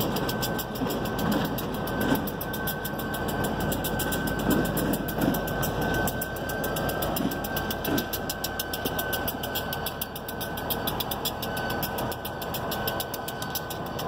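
CSX EMD GP-series (geep) diesel-electric locomotives running, their two-stroke diesel engines making a steady mechanical drone, with a thin high whine through much of it.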